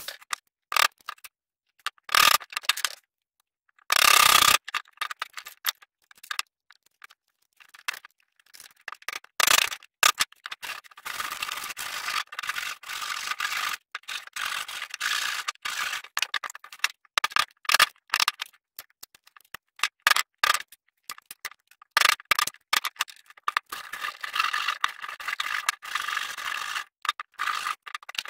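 A hand tool scraping out a freshly drilled hole in a thick wooden block, in short irregular strokes that become dense from about eight seconds in. There is one brief loud burst about four seconds in.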